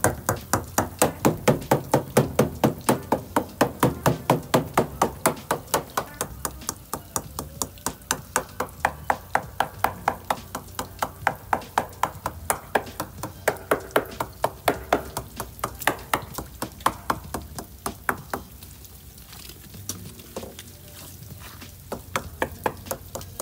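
Small hammer tapping rapidly along a fiberglass boat hull, about four sharp taps a second, sounding the laminate for blistering and hidden damage. The tapping stops about 18 seconds in, with a few scattered taps near the end.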